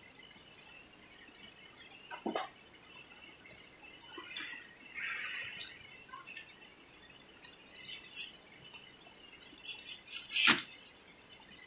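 Metal parts and a screwdriver clicking and clinking as components are fitted and screwed back into a cold spark machine's mechanism, with a few sharp clicks, the loudest near the end.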